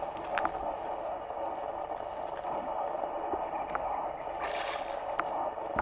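Steady outdoor background hum over flooded ground. About four and a half seconds in comes a brief whoosh, then a sharp click: a spinning rod being cast, with line running off the reel and the bail snapping shut.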